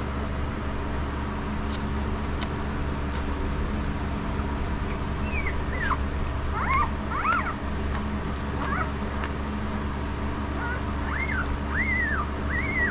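Newborn puppies squeaking and whimpering in short high chirps that rise and fall, starting about five seconds in and coming in a scattered run to the end, over a steady low hum.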